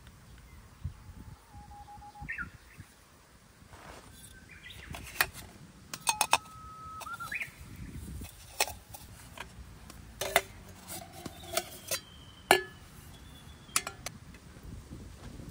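A run of sharp clicks, knocks and clinks from cooking gear being handled, some ringing briefly, with a few short bird chirps in the background.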